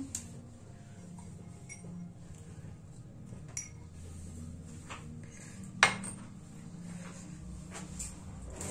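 Steel kitchenware clinking: a small steel mortar being emptied into a steel mixing bowl, with a few scattered sharp clinks, the loudest a little before six seconds in.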